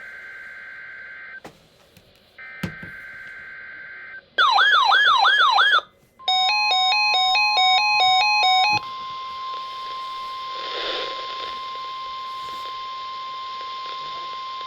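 NOAA Weather Radio warning alarm test received on weather radios. First come two steady electronic tones about a second and a half long, then a loud warbling siren-like alert. Then a loud, rapidly stepping multi-tone alarm plays over the steady 1050 Hz warning tone, which carries on alone over radio static until near the end.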